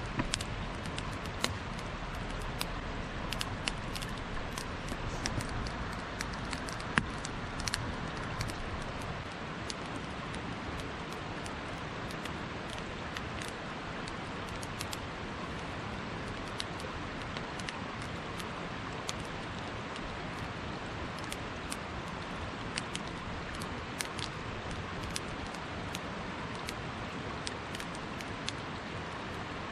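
Wood campfire crackling, with irregular sharp pops over a steady hiss; the pops come thickest in the first third.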